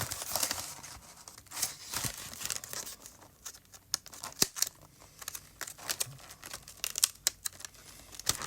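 Plastic wrapping on a Pokémon trading card box being torn and crinkled open, with irregular sharp crackles and rustles.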